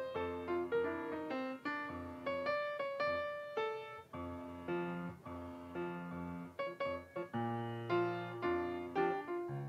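Solo piano playing chords under a melody line, about two or three notes a second, each note struck and then fading.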